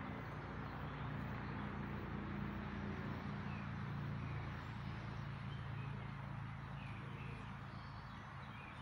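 Outdoor background: a low droning hum that swells through the middle and fades toward the end, with a few faint bird chirps.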